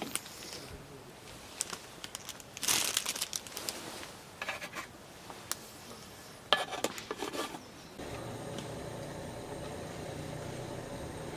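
Crinkling and rustling of something being handled, with scattered clicks. About two-thirds of the way in it gives way abruptly to a steady hum.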